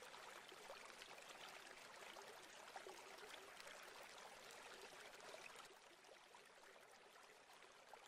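Near silence: a faint steady hiss of background noise that fades out about five and a half seconds in.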